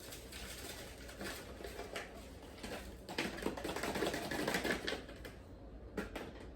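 Irregular rustling and crinkling of plastic bags and packaging being handled, with small scattered clicks, busiest in the middle.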